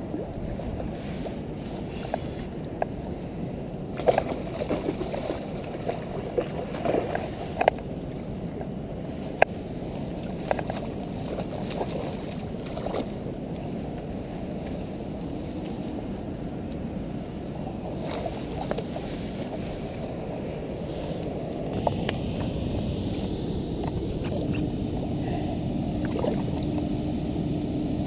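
Steady low rumbling noise of wind on the microphone and water at the bank. Scattered sharp clicks and knocks in the first half come from handling the spinning rod and reel while playing a fish. Near the end the noise grows brighter and a faint steady tone comes in.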